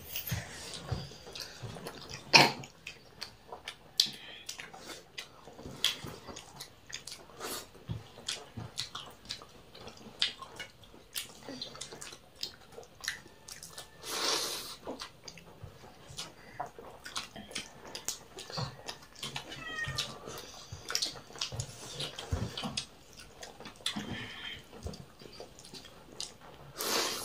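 Eating sounds: chewing and lip-smacking as rice and curry are eaten by hand, with many small clicks of fingers and food on steel plates. A sharp click about two seconds in is the loudest sound, and a brief high gliding squeak comes near twenty seconds in.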